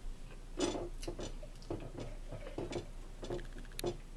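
Irregular small clicks and taps of a fork working food on a plate.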